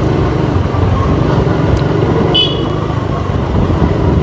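Motorcycle engine running steadily under way, with road noise, and a short high horn toot about halfway through.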